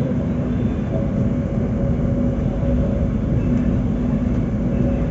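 Steady rumble of a moving passenger train heard from inside the carriage, with a constant low hum running under it.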